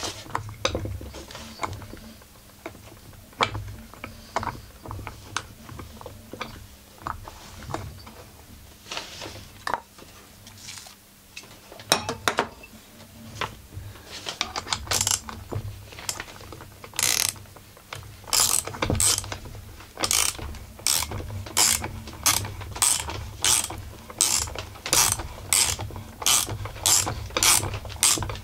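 A ratchet wrench clicking as it turns the bolt of a flywheel puller on a Husqvarna 44 chainsaw's stuck flywheel. The clicks are scattered and irregular at first, then settle about halfway in into a steady run of about two a second as the handle is swung back and forth.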